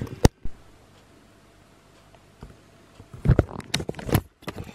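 Handling noise from a hand-held camera: a sharp click, a few seconds of quiet, then a burst of knocks and rustles as the camera is moved over plastic shipping mailers.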